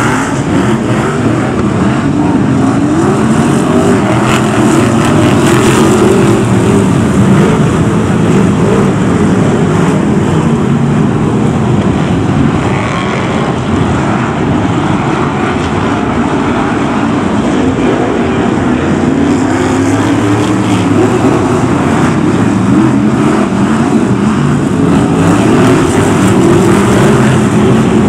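A pack of BriSCA F1 stock cars racing on a shale oval, their V8 engines running loud together, the pitch rising and falling as the drivers accelerate and lift through the bends.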